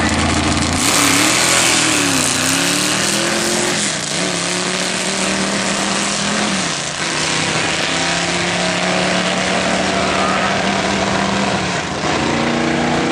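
Vintage Mopar drag car's engine at full throttle down the drag strip. A burst of noise at the launch about a second in, then the engine pitch climbs and drops sharply at gear changes about two and four seconds in, and settles into a steadier note as the car pulls away.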